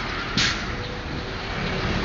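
Low rumble of a motor vehicle, swelling a little near the end, with a short hiss about half a second in.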